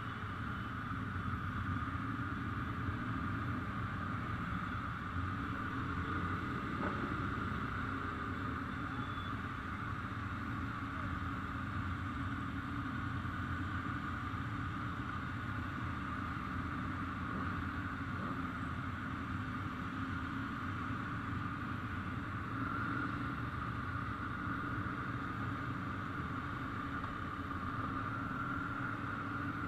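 Steady, unchanging drone of motorcycle engines.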